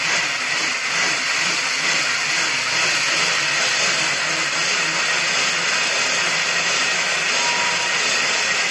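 BMX bike's rear tyre spinning against the roller of a simple stationary trainer as the bike is pedaled: a steady whirring rush.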